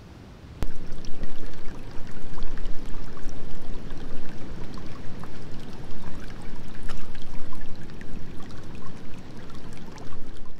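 Shallow stream water running and trickling over stones close to the microphone, a steady loud rush with many small splashes, starting suddenly about half a second in.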